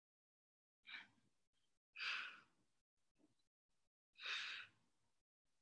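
A woman's heavy breaths out, three in all, the second and third louder, from the effort of single-leg glute bridge lifts.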